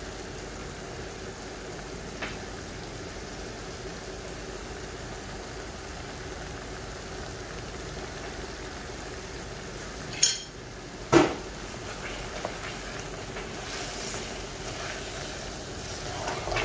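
Chicken simmering in thick chili-coconut gravy in a stainless-steel wok, a steady sizzling hiss, while it is stirred. About ten seconds in, two sharp metal clinks a second apart, the second loudest and ringing, as a metal spoon knocks against the wok. Near the end comes the scraping of a wooden spatula turning the chicken.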